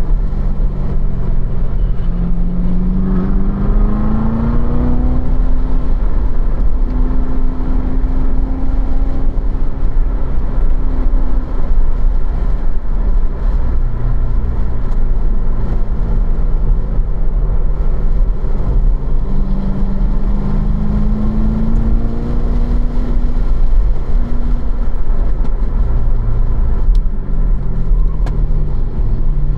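2015 Corvette Z06's supercharged 6.2-litre V8 heard from inside the cabin while lapping in third gear. The engine note rises twice as the car accelerates out of corners, about two seconds in and again past the middle, then levels off, over a steady low road rumble.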